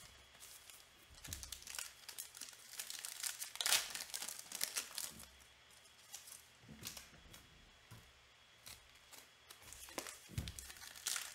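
Foil trading-card pack wrappers crinkling and being torn open by hand, in irregular bursts of crackling that are loudest about four seconds in. A couple of short low thumps come about a second in and near the end.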